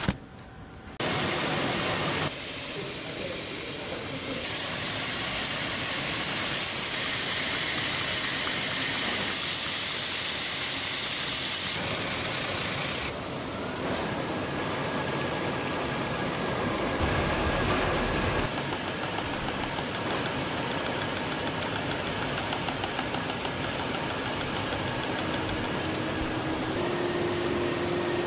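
Automatic carton folder-gluer machinery running: a steady mechanical hiss and whir that shifts in character every few seconds, with a faint steady high whine in the second half.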